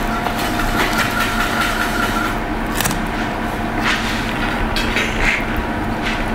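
Steady mechanical hum with a few light knife taps and cuts on a cutting board as a roasted pigeon is carved.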